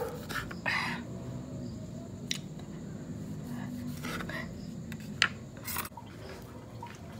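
Scattered short clicks and scrapes of things being handled, about six in all, over a low steady hum.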